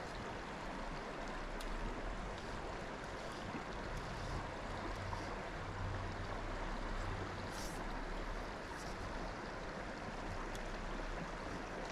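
Small, clear mountain creek flowing steadily, a soft even rush of water, with a few faint ticks.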